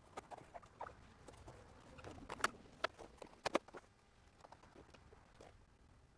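Light clicks, taps and scratchy handling noises of a headliner panel and trim parts being fitted by hand, with a few sharper knocks near the middle.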